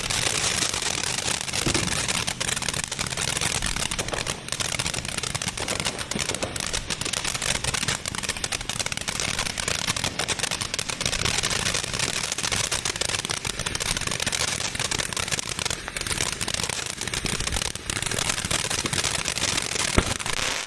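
Consumer firework going off with a continuous dense crackle of rapid small pops, kept up for about twenty seconds.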